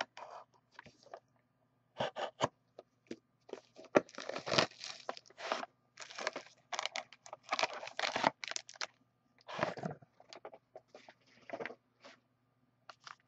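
Plastic shrink wrap being slit and torn off a sealed trading-card box, crinkling and crackling in irregular bursts, with a few sharp clicks as the box is handled.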